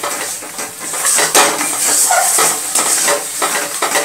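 A metal spatula scraping and stirring a thick pointed-gourd paste around a steel kadai in repeated strokes, about two a second, over a steady sizzle of the paste frying in oil as its water cooks off.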